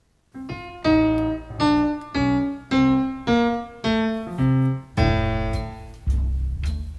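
Piano music: after a brief silence, a piano plays a slow line of single struck notes and chords about every two-thirds of a second. A fuller chord comes about five seconds in, and low bass notes join about a second later.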